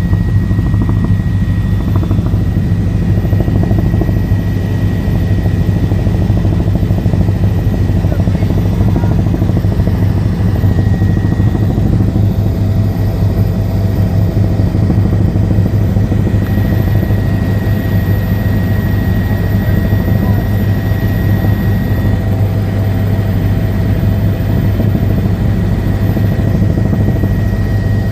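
Helicopter turbine and rotor running steadily in flight, heard from inside the cabin: a loud, even low drone with a faint steady whine above it.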